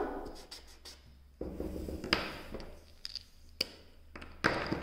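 Light handling sounds on a desk: a short scraping rub about a second and a half in, then a few sharp clicks and knocks spaced about a second apart, as a felt-tip marker and paper are handled.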